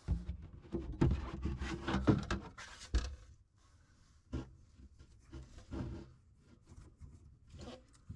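Handling noise from tools and parts: a dense run of knocks, clicks and rubbing for about three seconds, then a few scattered lighter knocks.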